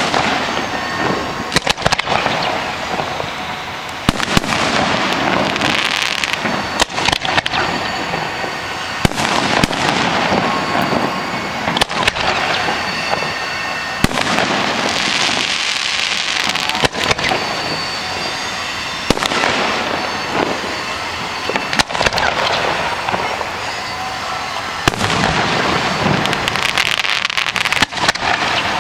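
Aerial fireworks display: shells launching on sparkling tails and bursting overhead. There is a sharp bang every two to three seconds, with a constant hiss and crackle between the bangs.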